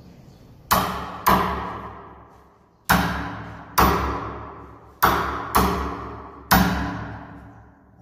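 Seven sharp, heavy knocks on a wooden door at uneven intervals, each ringing on for a second or more.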